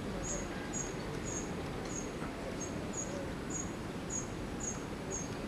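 A high, short chirp repeating about twice a second, from a small animal such as an insect, over steady low outdoor background noise.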